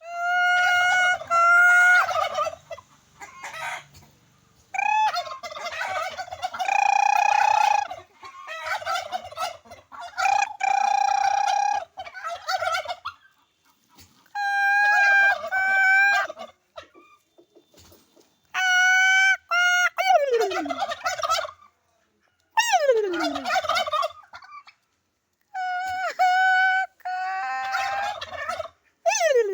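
Turkey calling over and over in loud bursts of one to three seconds with short pauses between them; several calls end in a steeply falling note.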